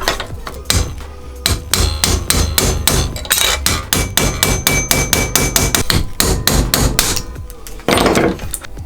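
Hammer tapping repeatedly on metal, several quick strikes a second, with a faint metallic ring through the middle of the run. A short rustling scrape follows near the end.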